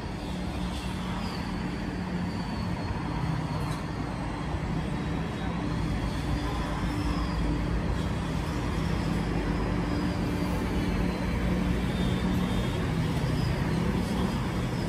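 CR400BF Fuxing high-speed electric multiple unit rolling into the station: a steady rumble of wheels on rail with a low hum, growing gradually louder as the train draws close. Faint high wavering squeals ride above it.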